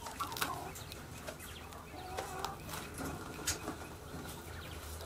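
Poultry clucking in short scattered calls, with a few sharp clicks.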